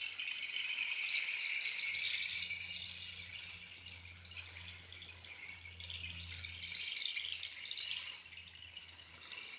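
Homemade wooden rain stick turned slowly, its fill of rice, dried split peas and black-eyed peas trickling down past the nails driven inside, giving a steady rain-like rattle. It swells slightly and eases off a little in the middle.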